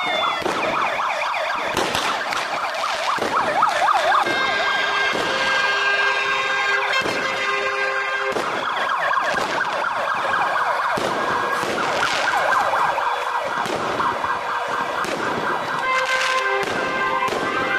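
Several fire engine sirens wailing at once, their rising and falling wails overlapping, with steady horn tones that start and stop. Sharp cracks sound now and then through the wailing.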